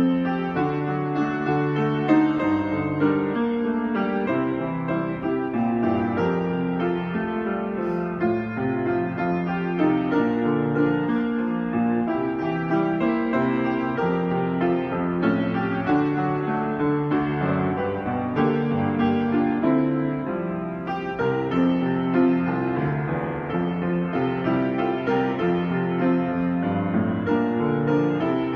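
Grand piano played solo, a continuous flow of chords and melody that changes steadily without pause.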